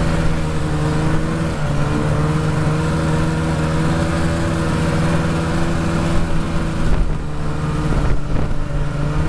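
Snowmobile engine running at a steady travelling speed, its pitch holding mostly even with a couple of brief small dips.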